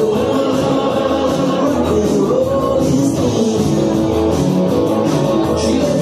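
Loud dance music with a singer and instruments over a steady beat, played for a dance floor.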